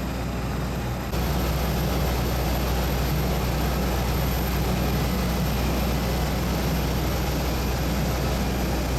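Steady low drone and hiss from a parked Airbus A319 at the stand during boarding. The level steps up about a second in and then holds steady.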